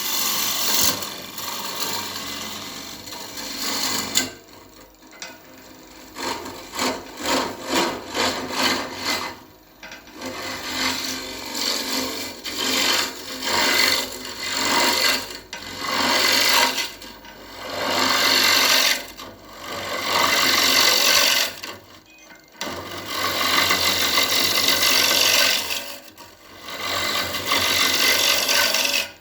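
Turning tool cutting a spinning ash blank on a Powermatic PM2014 wood lathe: a hissing, scraping cut that comes in repeated passes lasting from about a second to several seconds, with short breaks between them.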